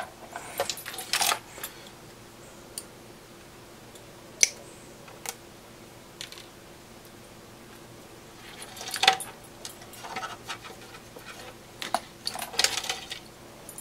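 Wire cutters snipping the external battery leads off the terminal posts: a few separate sharp clicks, the loudest about nine seconds in, with light wire-handling rustle and a rattling cluster of clicks near the end.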